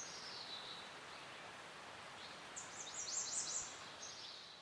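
Outdoor field ambience with a songbird: a single high falling note at the start, then a quick run of high, falling notes about two and a half seconds in, over a steady hiss. The sound begins to fade out near the end.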